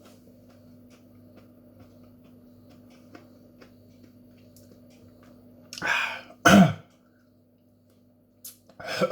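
A man coughing from the burn of a superhot chilli pod: two loud coughs about six seconds in, the second with a falling voiced tone, and another cough near the end.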